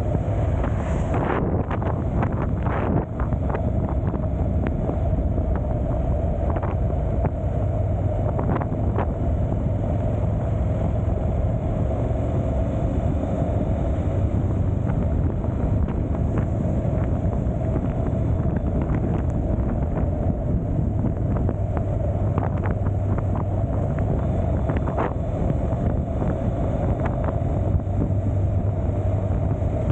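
Motorcycle running steadily at road speed, its engine a constant low drone under heavy wind buffeting on the microphone, with occasional small knocks.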